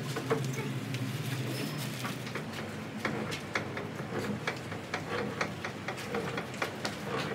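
Light, irregular metal clicks and taps, a few a second, over a low machine hum that fades about two seconds in.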